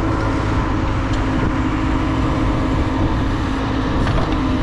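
Backhoe loader's diesel engine running steadily as the machine digs soil with its rear bucket.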